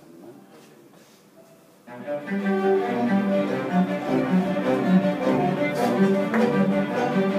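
String orchestra of violins, cellos and double basses rehearsing. After a quiet gap of about two seconds, the ensemble comes in together and plays a passage of short, repeated notes.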